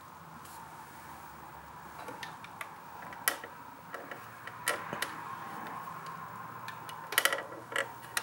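A faint steady hum with scattered sharp clicks and taps, a quick cluster of them near the end.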